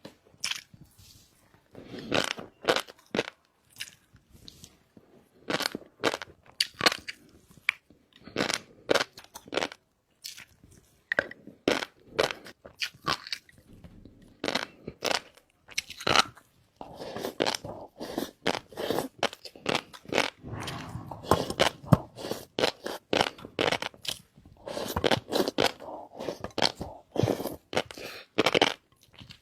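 Close-miked chewing of shrimp topped with fish roe: irregular wet crunching and sharp clicks in clusters, growing denser about halfway through.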